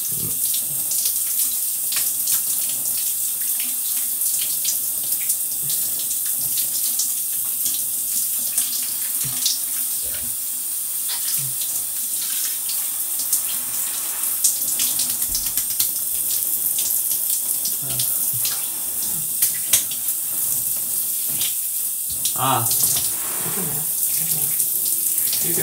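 Shower spray running steadily, a constant hiss of falling water with small splashes as it hits the bathers.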